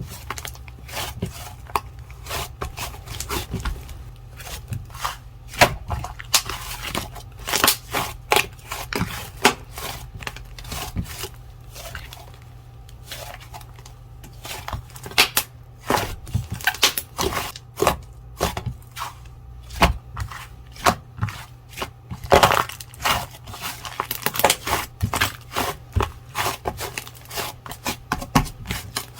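Slime being squeezed and poked by hand: a dense, irregular run of sticky crackles and pops, with a low steady hum underneath.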